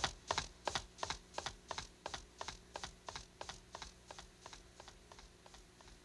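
A steady series of sharp taps, about three a second, growing fainter until they die away near the end.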